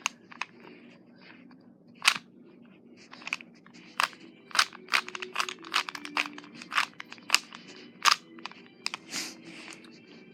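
3x3 Rubik's cube being turned by hand: a string of short, irregular plastic clicks and clacks as the layers snap round, some coming in quick runs, while a last-layer algorithm is worked through after the yellow cross.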